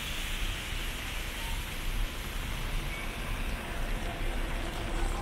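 Steady hiss of rain falling, over a low rumble.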